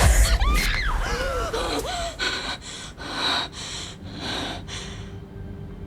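A woman whimpering with high wavering cries, then gasping for breath in quick ragged breaths, about two a second, that fade away near the end.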